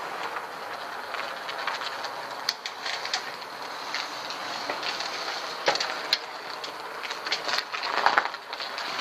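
Fat bike ridden across concrete: a steady rolling noise from its wide knobby tyres with scattered clicks and rattles.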